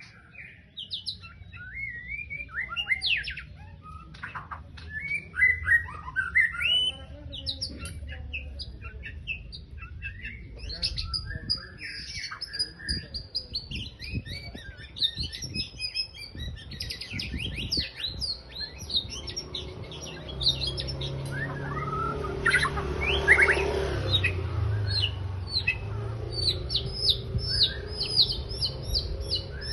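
White-rumped shama singing continuously in full voice: a rapid, varied run of whistles, trills and chirps, with quick repeated notes near the end, over a low background rumble.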